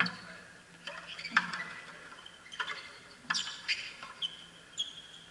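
Frontenis rally: the ball cracking off rackets and the fronton wall, a string of sharp hits at irregular spacing about a second apart, with echo from the court.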